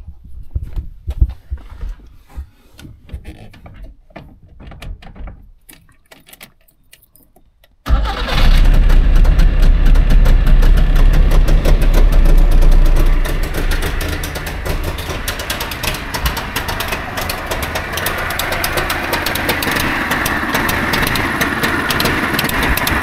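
Faint knocks and handling noises for about eight seconds. Then a Trabant 601's two-cylinder two-stroke engine starts suddenly, without choke, on a freshly cleaned carburettor. It runs loud for about five seconds, then settles to a lower, steady idle that it roughly holds.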